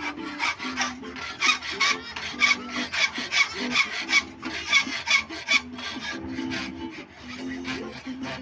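Steel hand file rasping back and forth across the edge of a bolo blade clamped in a vise, about three quick strokes a second, filing the edge. The strokes are loudest in the middle and lighter after about six seconds.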